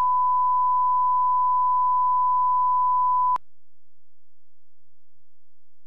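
1 kHz line-up reference tone that goes with colour bars: a steady pure beep that cuts off suddenly about three and a half seconds in.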